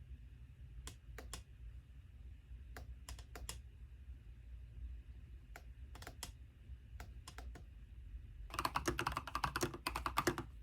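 Keys of a mechanical keyboard pressed one at a time, a few scattered clicks, then about eight seconds in a fast, dense run of typing that is the loudest part and stops shortly before the end. A low steady hum runs under it.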